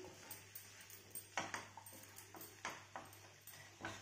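Faint sounds of a black spatula stirring sliced bell peppers in a non-stick kadhai, with a few soft knocks of the spatula against the pan over a low hiss of the vegetables cooking.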